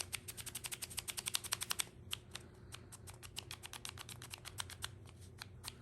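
Rapid light wooden clicking as the waxed sliding parts of a wooden puzzle box are worked back and forth. The clicks come thick and fast for about two seconds, then more spaced out.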